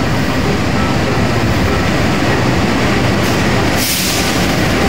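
Diesel locomotive hauling a passenger train slowly into a station, its engine rumbling with the wheels running on the rails. A brief burst of hiss rises over it about three seconds in.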